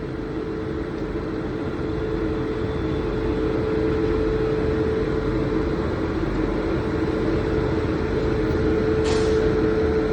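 Express train departing: a steady rumble of the moving train that slowly grows louder, with a steady hum running under it and a brief hiss near the end.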